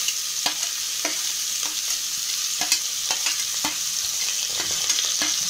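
Chopped onions and green chillies sizzling in hot oil in an aluminium pot, with a steel ladle scraping and clinking irregularly against the metal as they are pushed in and stirred.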